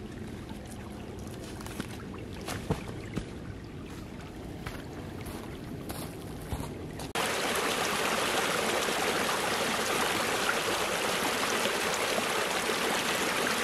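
Small forest stream running softly, with a few light knocks. About halfway through it changes abruptly to a loud, close rush of water tumbling and foaming over branches.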